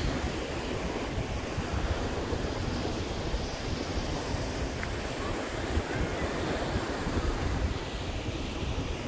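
Ocean surf breaking and washing ashore, a steady rush, with wind rumbling on the microphone.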